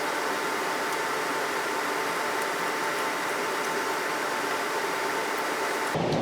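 Steady, even background hiss with a faint hum in it and a few faint small ticks; just before the end it cuts abruptly to a lower, rougher noise.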